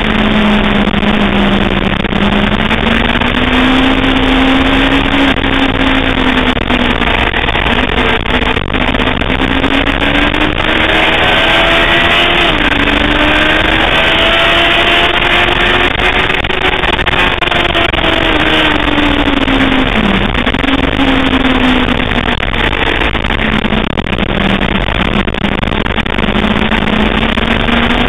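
Sportbike engine at speed on a racetrack, its pitch swelling and sagging with throttle and gear changes, with a sudden drop about twelve seconds in and a quick dip near twenty seconds. Heavy wind rush over the microphone runs underneath.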